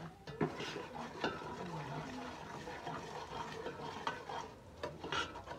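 Utensil stirring and scraping in a cooking pot, with several sharp clinks against the pot and a faint frying sizzle beneath.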